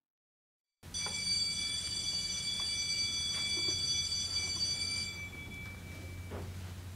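Electric school bell ringing as a steady high-pitched ring, starting about a second in, holding for about four seconds and then dying away, over a steady low hum.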